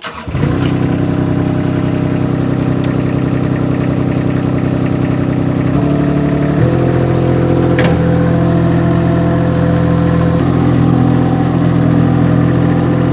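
MultiOne articulated mini loader's engine starting on the key and settling into a steady run. About six seconds in it speeds up to a higher, steady pitch.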